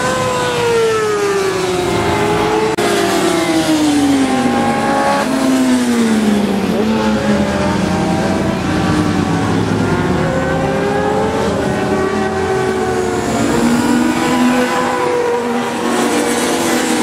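Several sport motorcycles running at speed on a race track. Their engine notes overlap and keep sliding down and up in pitch.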